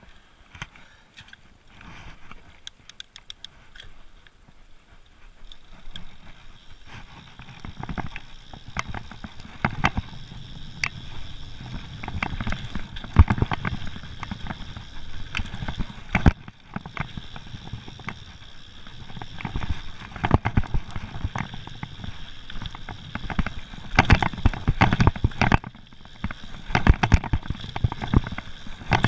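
Mountain bike riding fast down a rough dirt trail: a rumble of tyres on the ground with frequent sharp rattles and knocks from the bike. Quiet at first, it grows louder and busier from about seven seconds in.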